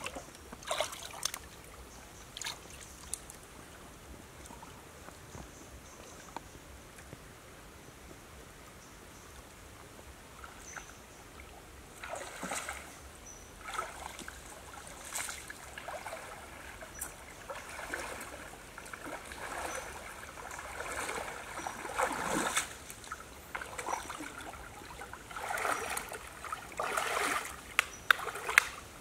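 Shallow stream trickling, then a person's footsteps wading and splashing through the water from about halfway through, in irregular surges that grow louder near the end.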